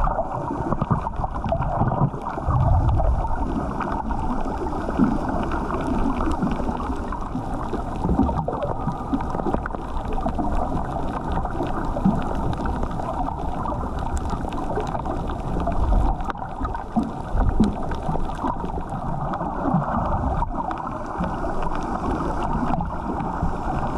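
Muffled underwater noise picked up by a GoPro inside its waterproof housing: a steady rush of moving water, with a few brief low thuds.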